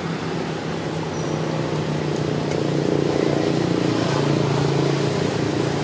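A steady low hum of a running engine, growing somewhat louder about two seconds in.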